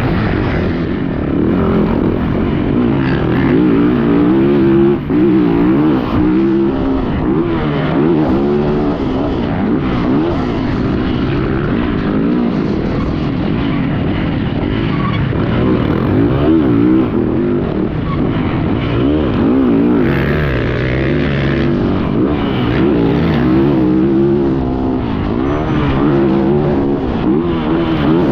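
Yamaha YZ450F four-stroke single-cylinder motocross bike engine ridden hard around a track, the revs climbing and dropping over and over with throttle and gear changes.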